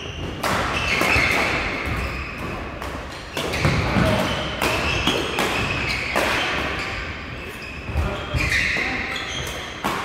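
Badminton doubles rally: repeated sharp racket strikes on the shuttlecock, with shoes squeaking on the court floor in several stretches lasting about a second.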